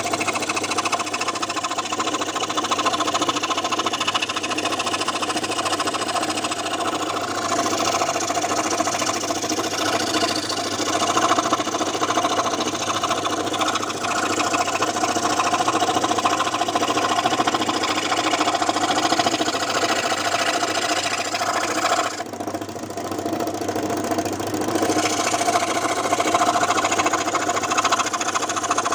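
Home-assembled scroll saw running, its reciprocating blade chattering steadily as it cuts wood. A little over two-thirds of the way through, the high rasp of cutting drops out for about two seconds, then comes back.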